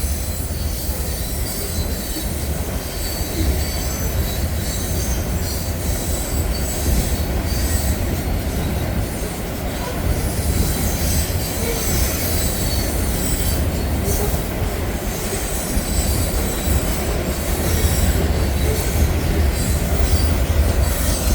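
BNSF train's rail cars rolling past, a steady low rumble with high, thin wheel squeal running over it.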